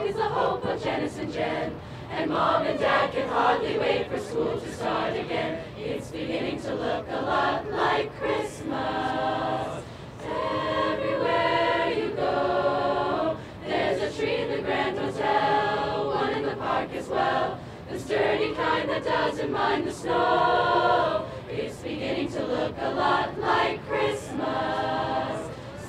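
Large mixed choir of teenage voices singing in harmony, holding long chords in phrases with brief breaks between them.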